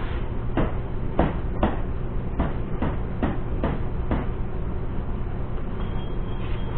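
About nine sharp knocks, roughly two a second, stopping about four seconds in: hard windshield latch parts being knocked and pressed together as the latch is fitted. A steady low hum runs underneath.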